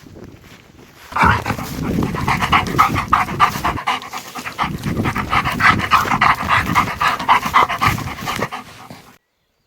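Dog panting close up, a quick run of breaths that starts about a second in and cuts off suddenly near the end.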